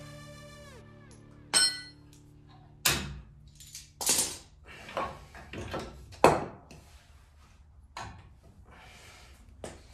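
Metal tools and suspension parts clinking and knocking, about eight separate sharp knocks a second or so apart, some ringing briefly, while front suspension is being taken off a car frame.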